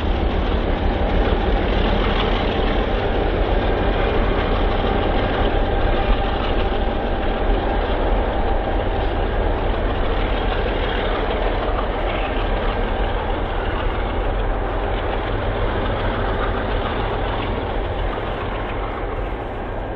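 Diesel freight train rolling past, its locomotive engines running under a steady rumble of rolling cars. The sound eases off slowly near the end.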